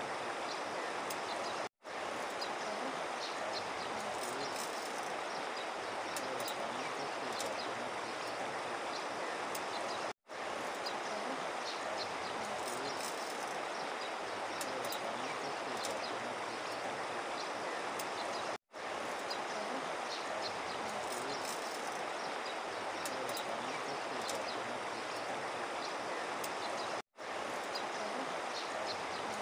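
River water rushing over a shallow gravelly stretch: a steady hiss with faint high ticks. The sound cuts out completely for a split second four times, about every eight seconds.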